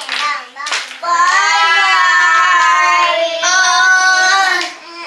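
A child's voice singing out two long held notes at a steady pitch, loud, lasting about three and a half seconds, after a couple of short voice sounds and a click at the start.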